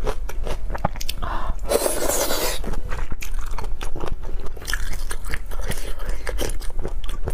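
Close-miked chewing and crunching of spicy chicken feet, with many small sharp wet clicks of skin and cartilage being bitten, and a louder noisy stretch about two seconds in.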